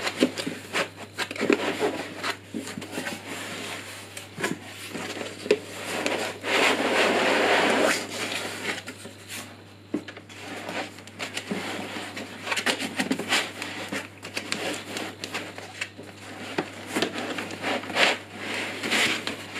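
Cardboard box flaps and white foam packing inserts rubbing, crackling and scraping as they are handled and pulled apart. There are many short clicks and rustles, and a longer, louder scrape about seven seconds in.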